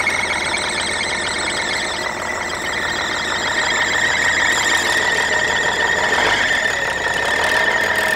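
An old semi truck engine running on its first start in about 20 years, with a loud, steady, high-pitched squeal from the alternator belt. The belt is slipping and burning on a seized alternator that is not turning.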